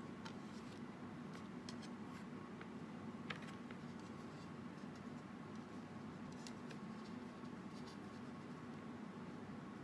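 Faint, scattered light clicks and taps from small things being handled on a work surface, the most distinct about three seconds in, over a steady low room hum.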